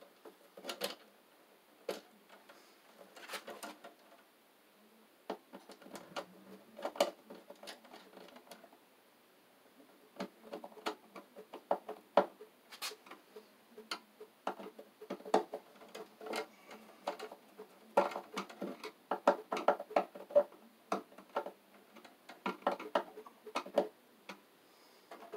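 Irregular clicking, tapping and scraping of electrical cable and wires being handled and fed in at the bottom of a metal breaker panel, coming in uneven clusters.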